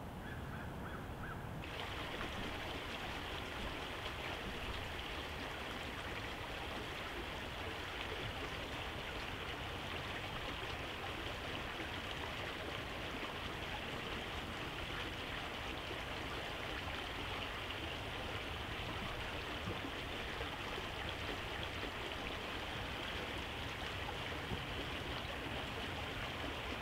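Steady rushing of a stream's running water, which turns louder and fuller about two seconds in.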